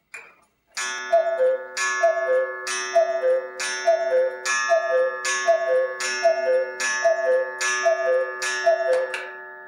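August Schwer Black Forest chalet cuckoo clock with an 8-day movement calling the hour. A short whirr of the mechanism comes first, then the two-note cuckoo call, high then lower, repeats about eleven times, roughly one every 0.75 seconds. Each call opens with a sharp strike whose ringing carries on and fades after the last call.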